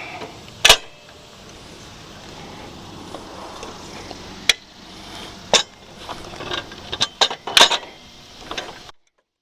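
Metal clanks, clicks and a few sharp knocks from a WEN MSA330 rolling miter saw stand's steel tube frame as it is folded down and its latches are worked. The knocks come singly at first, then bunch together near the end before the sound cuts off.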